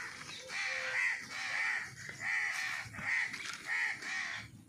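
A crow cawing over and over, a run of short harsh caws one after another.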